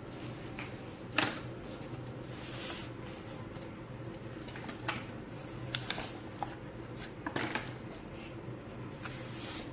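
Dream Whip powder being tipped from its paper packet into a stainless steel pot: rustling and soft pouring hiss with a handful of sharp clicks and knocks, the loudest about a second in and around seven and a half seconds, over a low steady hum.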